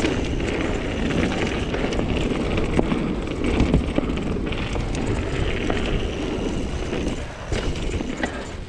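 Mountain bike riding over a rough trail: steady tyre and wind noise on the microphone, with scattered knocks and rattles.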